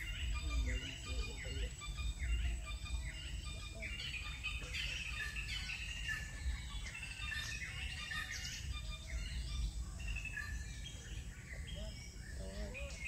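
Many small birds chirping and twittering in the trees, in quick overlapping calls, over a steady low rumble.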